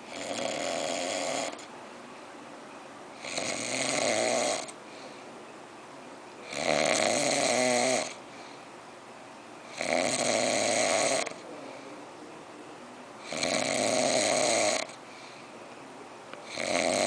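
A person snoring very loudly in a steady cycle. There are five long snores about every three and a half seconds, each lasting about a second and a half, and a sixth starts near the end. Quieter pauses fall between them.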